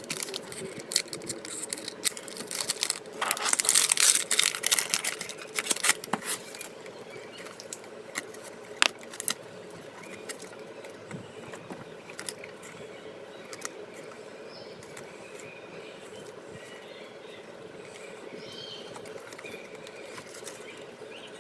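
Trading card packs and cards being handled, with rustling, crinkling and clicking. It is busiest in the first six seconds, then there is a single sharp click about nine seconds in, and afterwards mostly a faint steady hum.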